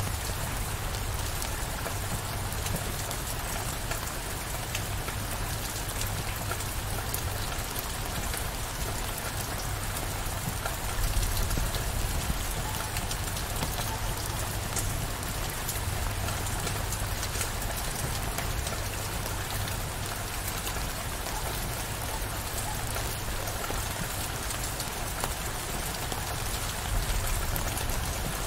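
Steady heavy downpour of rain, an even hiss of drops, briefly louder about eleven seconds in and again near the end.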